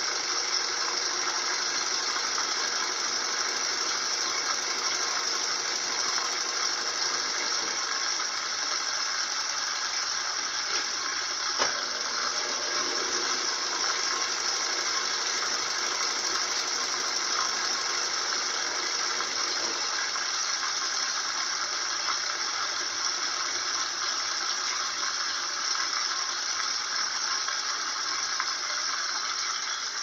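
Consul Maré 7.5 kg top-loading washing machine in its spin cycle, the drum spinning fast and running steadily, with a single sharp click about twelve seconds in.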